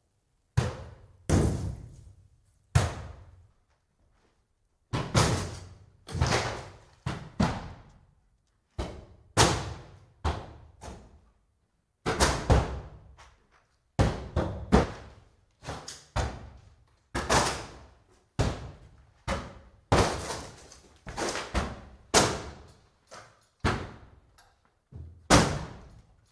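Axe blows striking the timber of a wooden cabin being broken apart: a long run of heavy, sharp strikes, each ringing out briefly, at about one to two a second with a couple of short pauses.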